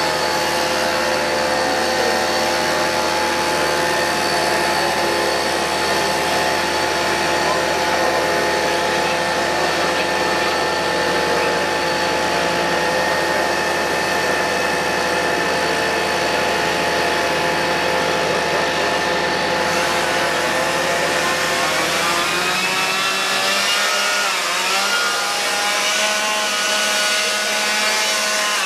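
Steady drone of fire-brigade vehicle engines and machinery running. From about twenty seconds in, a small engine revs up and down repeatedly.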